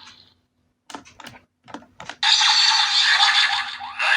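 A few sharp plastic clicks, then the DX Suiseiken Nagare toy sword's built-in speaker plays its electronic sound effects, loud and tinny.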